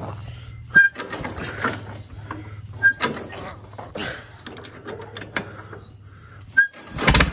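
A 1943 Farmall tractor, which has no starter, being hand-cranked: three sharp squeaking clicks from the crank and engine, with scuffing and handling noise between them, then a loud low rumbling burst near the end as the engine turns over.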